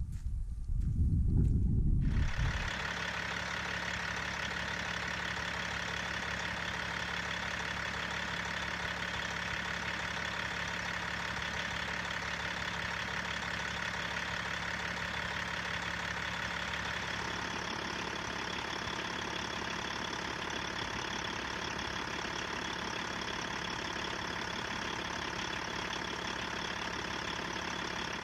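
Rebuilt Caterpillar diesel engine of a heavy truck idling steadily, heard at the open engine bay. It comes in abruptly about two seconds in, after a low rumble.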